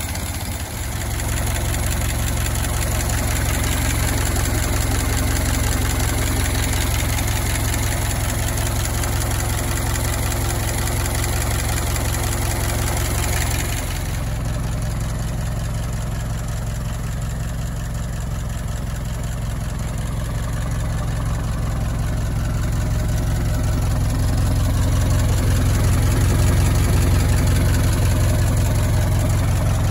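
Ford Model T farm truck's four-cylinder flathead engine running steadily at idle. About halfway through, the sound turns deeper, with less hiss.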